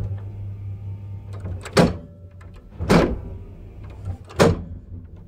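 Push buttons in the car of an old gated Keighley traction lift being pressed, with three loud clunks from the lift's relay control gear a little over a second apart, over a steady low hum.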